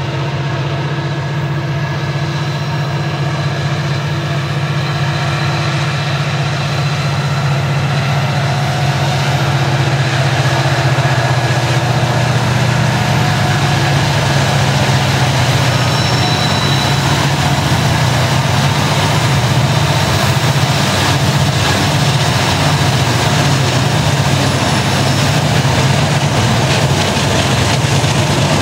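Lead BNSF diesel-electric locomotives of a loaded coal train running under load with a steady low engine drone, getting louder over the first ten seconds or so as the units come close and pass by.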